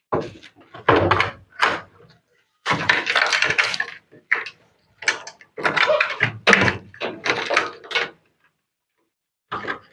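Knocking, scraping and rattling of a top-load washing machine's plastic and metal panels and parts being handled and pulled apart, in a string of irregular bursts.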